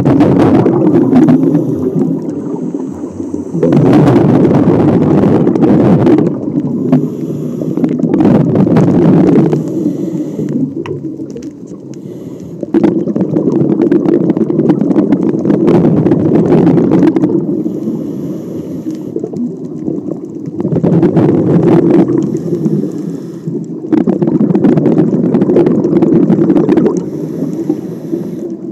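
A scuba diver's own breathing through the regulator underwater: loud rushes of exhaled bubbles every five seconds or so, with a quieter hiss of inhaling between them.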